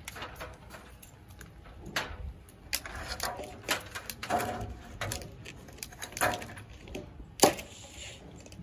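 Clatter of a worker handling long strips of fascia trim on a ladder plank: scattered light knocks and jangles, with one sharp knock about seven and a half seconds in.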